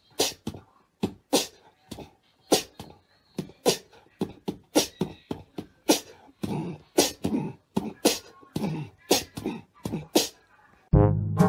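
A beatboxing-style beat of sharp mouth clicks and pops, about two a second, with a few short low hums between them. Near the end, brass music takes over.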